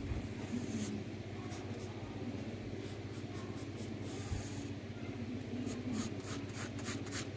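Pencil scratching on lined paper while drawing: a run of short strokes, with a longer stroke about four seconds in. A steady low hum lies underneath.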